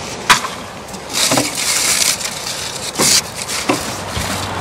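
Spent cardboard firework tubes and cakes being handled during cleanup: a sharp knock about a third of a second in, then stretches of rustling, scraping noise and a few more clacks.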